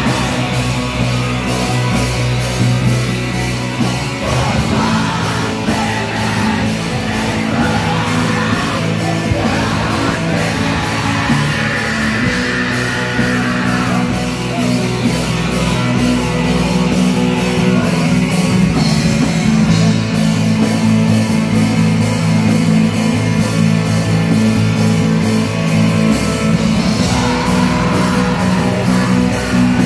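Live heavy metal band playing loud and continuously: distorted electric guitars, bass guitar and a drum kit with steady cymbal hits, with a vocalist singing over them.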